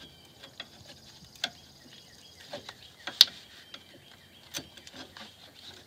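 Scattered small metallic clicks and clinks of a 2005 Toyota Corolla's rear drum brake shoes and their springs being worked into place on the backing plate, with one sharp click a little past the middle.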